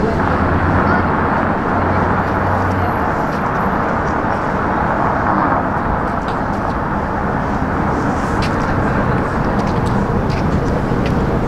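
City street traffic: a steady wash of passing vehicles, with a low engine hum for the first three seconds.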